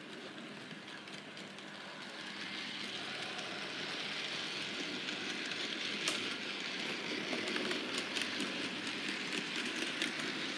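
Model railway goods train, a small tank locomotive hauling a few wagons, running along the track: a steady rolling and motor noise that grows louder from about two seconds in as it passes close by, with a single sharp click about six seconds in.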